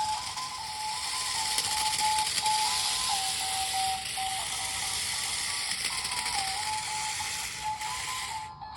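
Remote control stunt car's built-in music: a simple electronic beeping tune stepping between a few notes, over a steady mechanical rattle and hiss that drops out briefly near the end.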